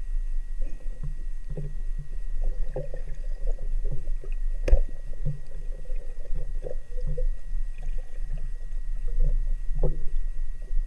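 Muffled water noise heard through an underwater camera housing during spearfishing: a steady low rumble with scattered gurgles and soft knocks, and one sharp click about halfway through.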